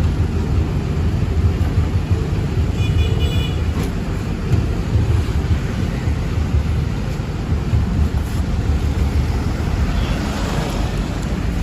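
Vehicle engine running with a steady low rumble. A brief high beep sounds about three seconds in.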